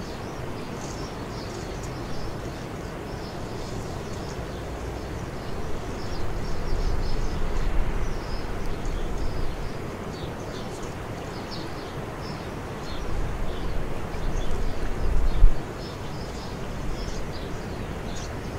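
Ambient outdoor sound: small birds chirping over and over, over a steady low rumble that swells twice, about six seconds in and again from about thirteen to fifteen seconds.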